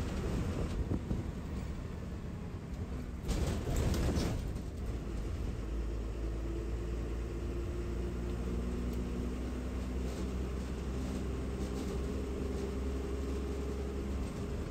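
A KSRTC Minnal express bus running at speed on the highway: steady low engine and road rumble. About three seconds in, a louder rushing noise lasts around a second. From about six seconds in, a steady engine note rises above the rumble.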